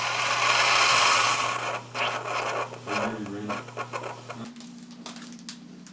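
Single-serve pod coffee maker finishing a brew: a hiss of coffee streaming into a ceramic mug that dies away about two seconds in, then irregular sputtering as the last of the brew spits out, over a low steady hum that shifts up in pitch about four and a half seconds in.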